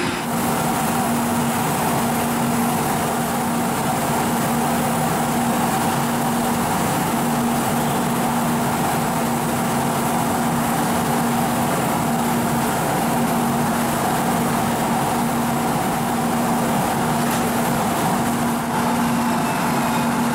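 Italian FS E.402B electric locomotive standing at the platform, its cooling fans and auxiliary equipment humming steadily with a constant low tone.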